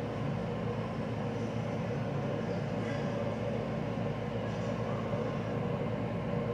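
Steady mechanical drone with a constant low hum that does not change.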